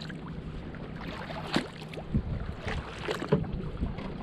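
Kayak paddle strokes: the blades dip and pull through the water with a few irregular small splashes and drips, over a low steady hum.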